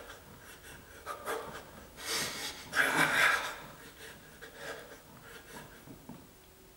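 A man breathing hard from the effort of fast shadowboxing punches, with a few sharp, noisy breaths out, the loudest about three seconds in.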